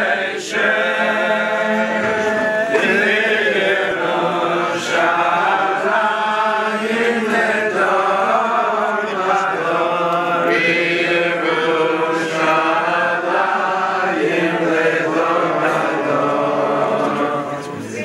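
A group of men and women singing a melody together, in long continuous phrases.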